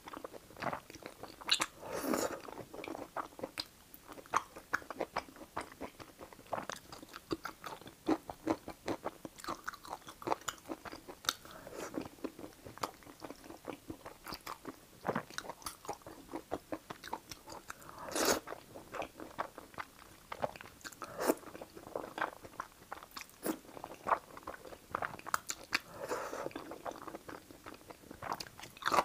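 Close-miked eating of soft, chewy stir-fried rice noodles and rice cakes: a steady run of wet chewing and mouth clicks, with a few louder slurps of noodles, about two seconds in, past the middle and near the end.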